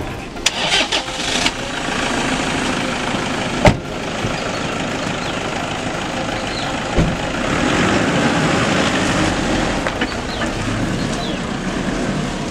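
Toyota Innova MPV starting up and driving off, with a car door slamming shut a few seconds in.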